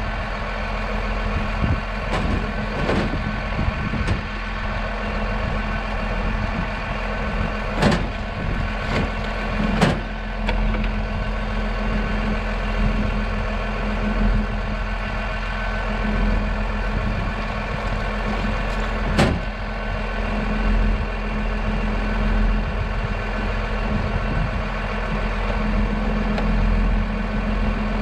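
An engine running steadily at a constant speed, with a few sharp knocks, about 8, 10 and 19 seconds in.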